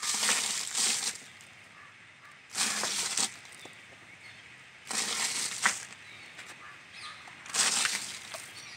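Handfuls of red soil dropped onto dry leaves in a metal bucket: four rustles, each about a second long, roughly two and a half seconds apart.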